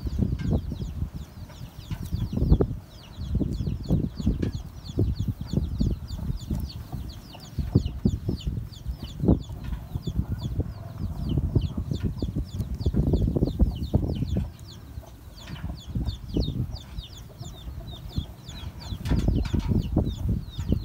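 Irregular rustling and bumps of gloved hands working a fine-toothed metal flea comb through a dog's coat close to the microphone, with rapid high chirping of birds throughout.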